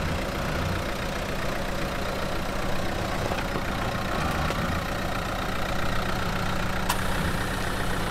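Dacia Duster's engine running steadily at low revs as the SUV crawls slowly over tree roots on a forest trail. A sharp click sounds near the end.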